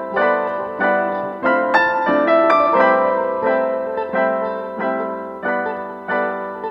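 Background piano music: notes struck one after another and left to ring, at a gentle, steady pace.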